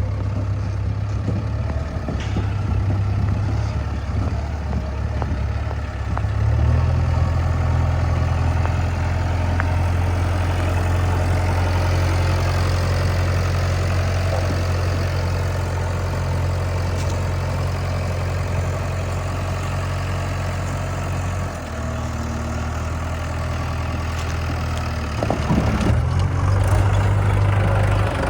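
Heavy diesel engine of the working machinery running steadily. Its note steps up about six and a half seconds in, drops back about twenty-one seconds in, and rises again near the end.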